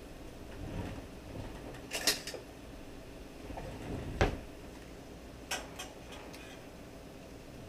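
A few sharp knocks and clinks of kitchen things being handled at the counter, the loudest a single knock about four seconds in, with lighter clicks after it.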